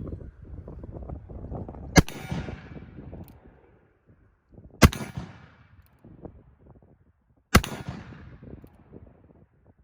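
Three shots from a black-powder cap-and-ball revolver, a Uberti replica of the Colt 1851 Navy in .36 calibre, fired a little under three seconds apart, each trailing off in echo.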